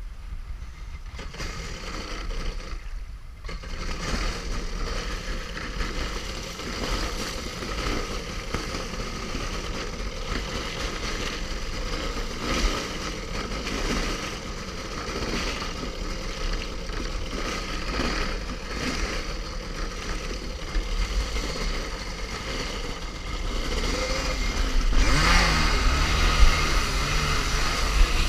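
Kawasaki 650SX stand-up jet ski's two-stroke twin engine running under throttle through rough water, with water splashing against the hull. The engine revs up and gets louder near the end.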